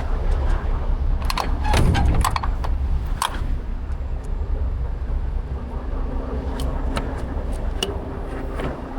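Low steady rumble of an idling truck, with a quick run of sharp metallic clicks and knocks about one to three seconds in and a few lighter clicks later.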